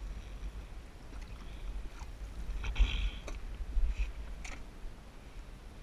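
Water splashing and knocks as a northern pike is grabbed by hand and lifted from the lake over the side of a boat, over a low rumble of wind on the microphone. The loudest splashes and knocks come about three seconds in, with another near the end.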